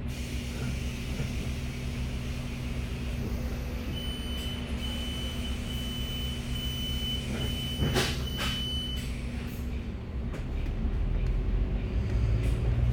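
Bus diesel engine running with a steady low drone, heard from inside the cabin. From about four seconds in, a row of high electronic warning beeps sounds for about five seconds, with a short clunk near the end of the beeping; the engine note then grows louder near the end.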